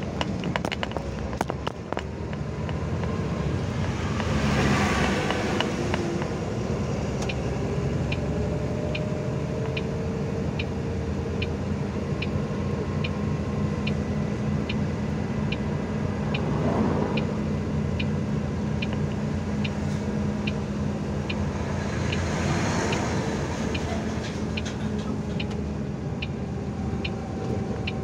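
A truck's diesel engine running steadily with tyre and road noise, heard from inside the cab on a rough road. Oncoming vehicles rush past about four seconds in and again near the end. A regular light ticking, about one and a third a second, runs through the middle.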